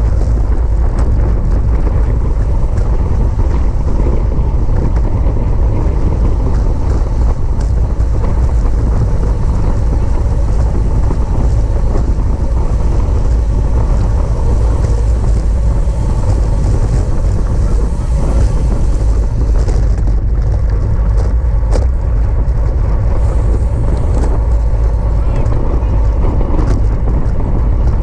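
Wind buffeting the microphone of a cyclist's camera at racing speed: a steady, loud low rumble with a rushing hiss above it.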